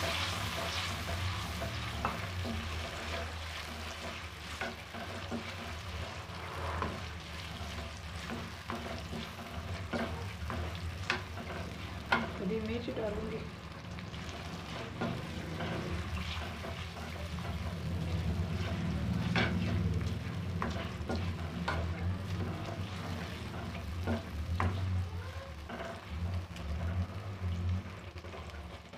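Chopped tomatoes frying in oil in a metal wok, sizzling steadily, while a spatula stirs and scrapes the pan, with scattered sharp knocks of the spatula against the metal. A steady low hum runs underneath.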